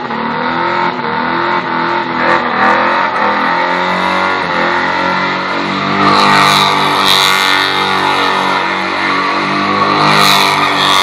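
Holden VL Commodore's straight-six engine revving hard through a burnout, swinging up and down in pitch at first and then held at high revs, with surges of hiss about six seconds in and again near the end.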